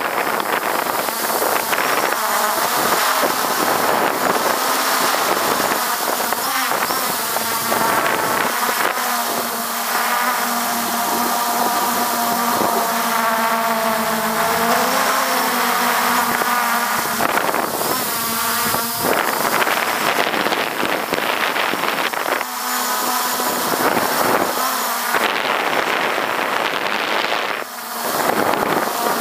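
MJX Bugs 3 quadcopter's brushless motors and propellers buzzing steadily in flight, heard from just beneath the rotors. The pitch shifts up and down as the drone manoeuvres, and the buzz eases briefly near the end.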